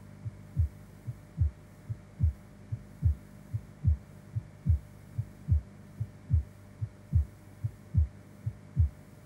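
Pulse throbbing in the arm's artery, heard through a stethoscope as the blood-pressure cuff is deflated: the Korotkoff sounds of blood forcing past the cuff, which mark the systolic pressure. Steady low thuds, a stronger and a softer one in turn, a little over one beat a second, over a low hum.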